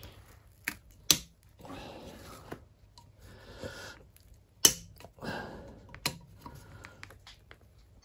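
Circlip pliers working a large internal retaining circlip into a cast hub-carrier bore: a handful of sharp metallic clicks as the clip flexes and slips against the casing, the loudest a little past halfway, with softer rubbing sounds between them.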